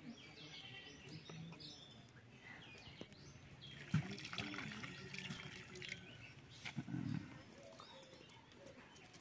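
Water splashing and pouring back into a metal pan as a soaked dead chicken is lifted out, starting with a sharp splash about four seconds in. Small birds chirp throughout.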